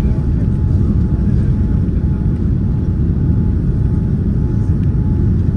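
Cabin noise of a Boeing 787-9 on final approach with flaps extended: a steady, loud low rumble of engines and airflow, with a faint steady tone above it.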